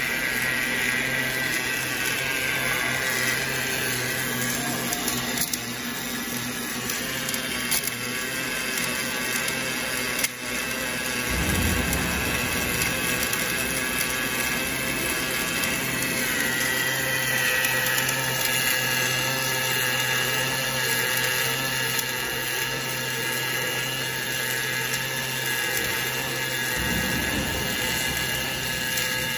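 Automatic wire-fed arc welding machine laying a circumferential deep-groove weld where the rod eye meets a rotating hydraulic cylinder rod: the welding arc runs steadily over the hum of the machine, with a single click about ten seconds in.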